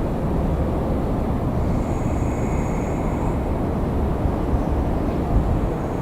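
Freight train rolling past with a steady low rumble. A thin, high squeal rises over it about two seconds in and lasts about a second and a half.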